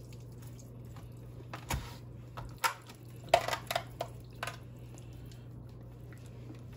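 Oily hands rubbing a raw turkey in a disposable aluminum foil roasting pan: scattered wet squishes and foil crackles, most of them in a cluster around the middle, over a steady low hum.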